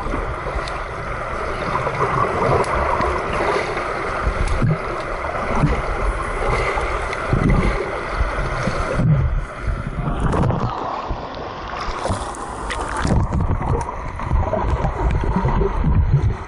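Muffled rushing and gurgling of pool water and bubbles heard with the microphone underwater, with low thumps and surges as a child swims and kicks close by.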